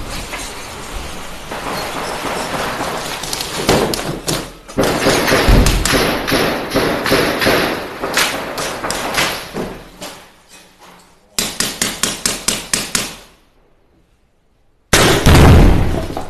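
Close gunfire inside a stone building: many sharp shots through the first ten seconds, then a rapid automatic burst of about ten shots around twelve seconds in. A short lull follows, then a very loud bang near the end.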